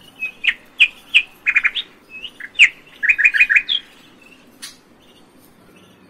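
Budgerigars chirping: a run of short, sharp chirps, some in quick clusters of three or four, stopping about four seconds in, followed by a single click.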